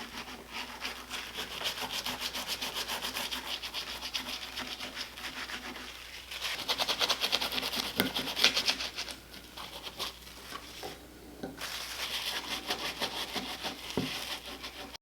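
A scrub pad rubbing back and forth over the painted metal housing of an old outboard motor, in quick rhythmic strokes with a brief pause about eleven seconds in.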